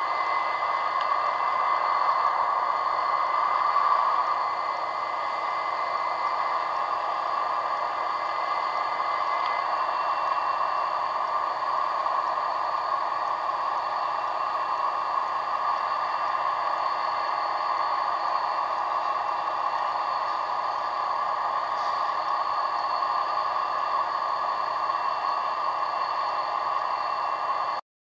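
Steady mechanical running noise, strongest in the middle range with a few faint steady tones over it, with no change in rhythm; it cuts off suddenly just before the end.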